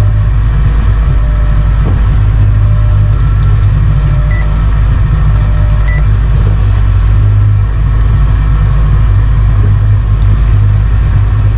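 Outboard motor of a Yamaha FAST26ex pleasure boat running steadily under way, a loud even rumble with a hum. Two short electronic beeps sound near the middle, about a second and a half apart.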